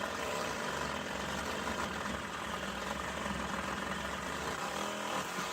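A motor or small engine running steadily, starting and stopping abruptly.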